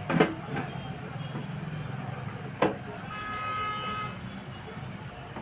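Two sharp knocks, a fraction of a second in and again about two and a half seconds in, over a steady low hum. A vehicle horn then sounds for about a second.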